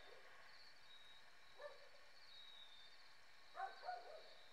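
A dog barking: one short bark, then two barks in quick succession about a second and a half later, over a steady high chirring of night insects.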